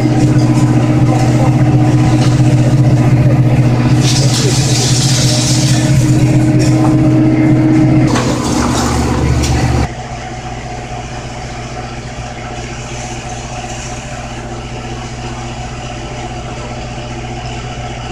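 Fire engine's engine running at a steady speed, a loud constant drone with a higher hum above it. About four seconds in, a hiss rises for a couple of seconds. Around ten seconds in the sound cuts to a quieter, steady background hum.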